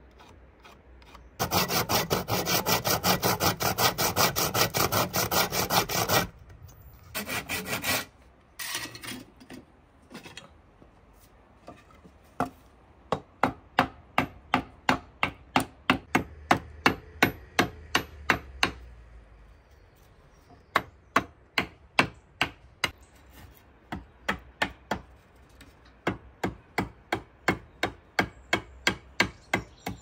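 A wooden plank scraped hard against a rough concrete ledge in fast rubbing strokes for about five seconds, with two short scrapes after. From about twelve seconds in, a sickle blade chops and shaves at a wooden stick in sharp, even strokes, about two or three a second, with a short pause partway.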